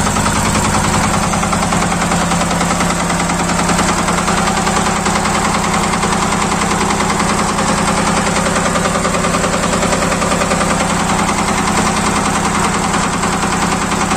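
Yanmar diesel engine of a welding generator running steadily with an even diesel clatter, having just restarted after air was bled from its fuel system.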